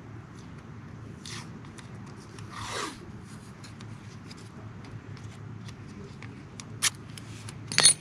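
Hand-work on car parts and tools: scattered light clicks and handling noise, a short swish about two and a half seconds in, a sharp click about seven seconds in and a louder clatter just before the end.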